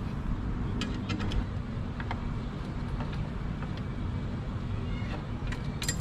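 Light metallic clicks and clinks of screws and tools being handled while a scooter mudguard is being fitted, a few at a time about a second in, around two seconds in and near the end, over a steady low background rumble.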